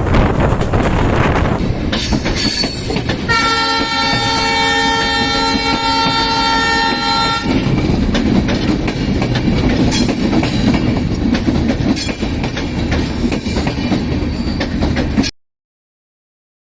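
A running train's rumble and wheel clatter, with a diesel locomotive's multi-tone air horn sounding steadily for about four seconds starting about three seconds in. The sound cuts off abruptly about a second before the end.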